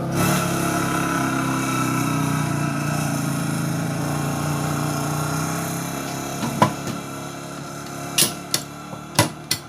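A motor engine running steadily and fading away over the first six seconds, then a handful of sharp knocks and clicks as the 2 mm aluminium side box is handled.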